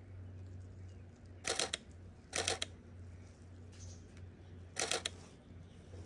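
Canon EOS 6D Mark II DSLR shutter firing in three short bursts of rapid clicks, continuous shooting at a chickadee: the first about one and a half seconds in, the second just under a second later, the third near the end.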